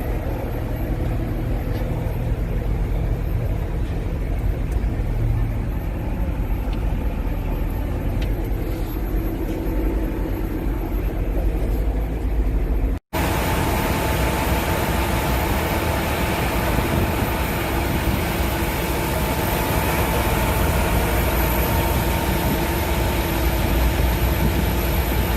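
John Deere 350G excavator's diesel engine running steadily. About halfway through, the sound drops out for an instant and comes back brighter, with a steady whine on top.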